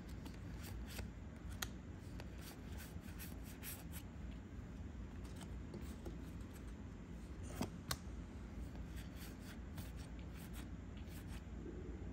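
Star Wars Unlimited trading cards being handled and flipped through by hand: faint scattered clicks and rustles, with a couple of sharper card snaps about a second and a half in and again near eight seconds.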